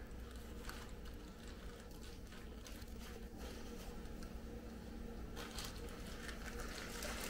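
Faint rustling and soft crinkling of a fabric gift bag being pulled open and handled, with many small scratchy ticks that grow a little busier over the last two seconds.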